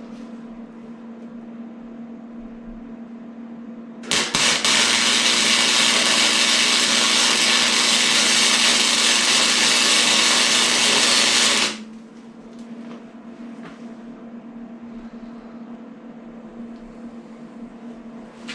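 Flux-core wire welder laying a weld bead for about seven seconds: the arc sizzles loudly, starting about four seconds in and cutting off abruptly, over a steady low hum.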